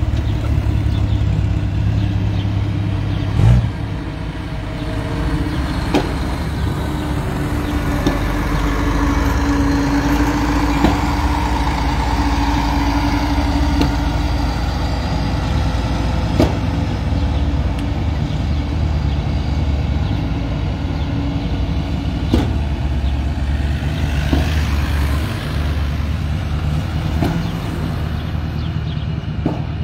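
Chevrolet Camaro Z28 V8 running with a steady low exhaust rumble through aftermarket mufflers on 2.5-inch pipes. A few sharp pops cut through it, the loudest about three and a half seconds in.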